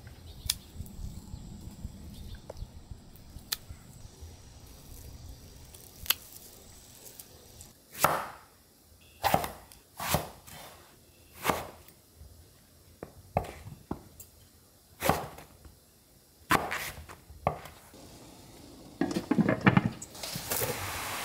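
A large kitchen knife cuts through an eggplant onto a wooden cutting board, about eight separate cuts roughly a second apart. Near the end, a glass pot lid clatters as it is set onto a steamer pot.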